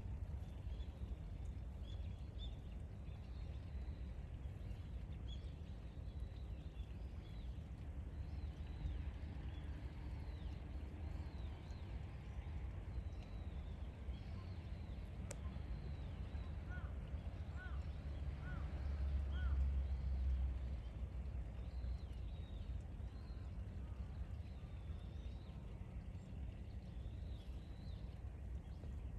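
Outdoor ambience: a steady low rumble with small birds chirping faintly here and there. A run of four short chirps comes a little over halfway through, followed by a louder low rumble about two-thirds in.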